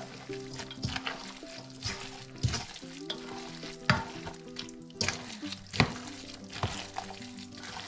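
A spoon stirring wet, raw minced-chicken momo filling in a stainless steel bowl: a squelching, sizzle-like mixing noise with a sharp knock of the spoon against the bowl every second or so.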